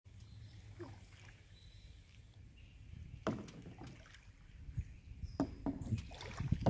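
Kayak paddling: soft paddle strokes in the water over a low rumble, with two sharp knocks, about three seconds and about five seconds in.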